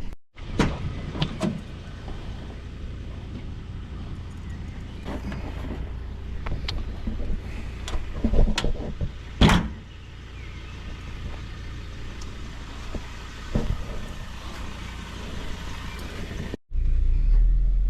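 Car engine running steadily, with several sharp knocks and clunks over it, the loudest two about a second apart near the middle. Near the end the sound cuts to a louder, steady engine rumble.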